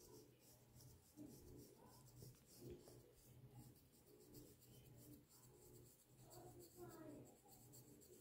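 Faint, quick repeated scratching of a fine-toothed plastic comb raked through short, tight-curled hair and against the scalp, a few strokes a second, loosening dandruff flakes.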